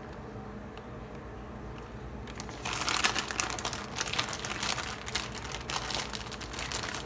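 Plastic bag of shredded cheese crinkling as it is handled: a quiet start, then a run of crackly rustles from about two and a half seconds in.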